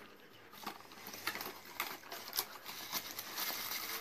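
Small cardboard packaging being handled and opened by hand: a string of light taps and clicks, about two a second, with rustling that grows louder near the end.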